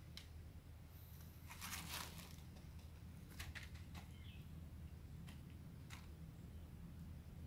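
Faint handling noises: a brief rustle about two seconds in, then a few small, sharp clicks scattered through the rest, over a low, steady hum.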